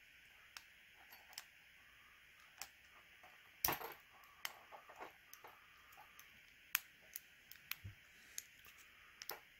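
Small irregular metallic clicks and ticks of a lock pick working the pins of a Regal 3035A gun lock, with one louder click about three and a half seconds in.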